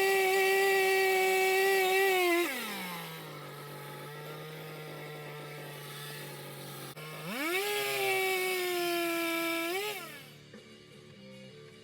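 Gas chainsaw engine running at high revs, dropping to a low steady idle about two and a half seconds in. It revs back up around seven seconds and falls away again near ten seconds.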